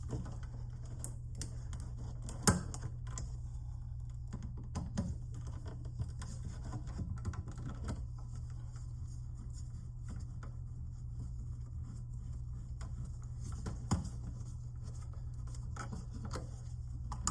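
Scattered small clicks and taps of a screwdriver driving the mounting screws of a USB combo outlet receptacle into the electrical box. There is a sharper click about two and a half seconds in and another near fourteen seconds, over a steady low hum.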